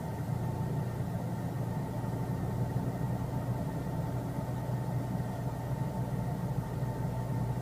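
A steady low mechanical hum with a thin, constant higher tone over it, unchanging throughout.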